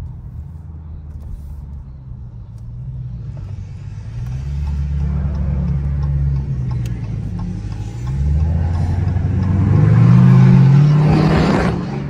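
A 2020 Dodge Challenger Scat Pack's 392 Hemi V8 with a new aftermarket exhaust pulls under throttle. The engine note swells about four seconds in, then climbs again from about eight seconds, louder and rising in pitch, and eases off just before the end.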